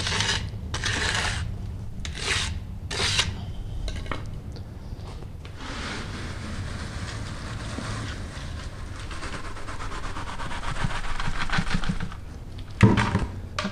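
A magnesium float scraping over wet concrete in a few short strokes. Then wet concrete slides out of a tipped plastic pail with a steady rasping pour for several seconds, and there is a loud thump near the end.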